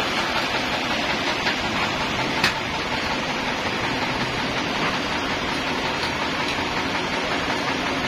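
Sawmill machinery running steadily while the log carriage travels, carrying a trembesi (rain tree) log clamped in its head blocks. A single sharp click comes about two and a half seconds in.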